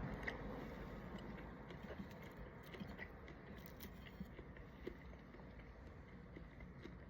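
A person eating shrimp close to the microphone: faint chewing with scattered small wet clicks and crackles.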